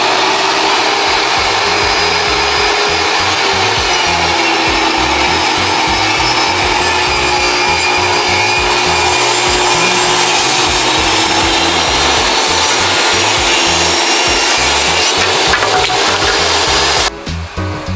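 DeWalt table saw ripping a tongue-and-groove board lengthwise into trim strips, a loud steady cutting noise under load that cuts off abruptly near the end.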